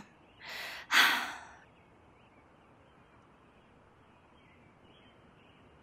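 A woman takes a breath in and lets out a sigh, the sigh the louder of the two, then near silence.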